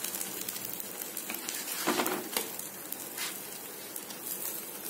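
Ragi dosas sizzling on a hot nonstick tawa: a steady crackling hiss, with a few spatula taps or scrapes against the pan near the middle.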